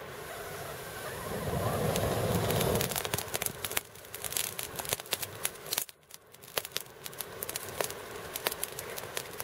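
A tinder bundle catching fire on a campfire's ashes: a rushing sound swells over the first three seconds, then dense crackling as the fibres burn, dropping away briefly about six seconds in before the crackling resumes.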